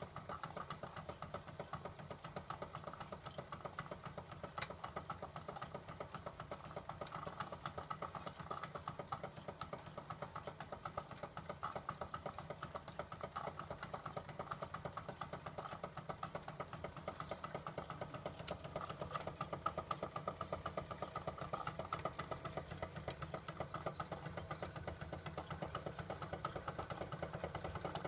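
Wilesco D15 toy live-steam engine running steadily with a rapid, even beat, together with the light mechanical rattle of the tin ferris wheel it drives; a couple of sharper clicks stand out.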